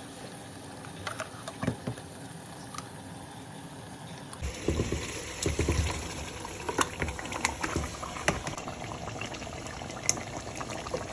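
Food cooking in a pot on the stove: a steady hiss with scattered sharp crackles. After about four seconds it becomes busier, with denser pops and some low knocks.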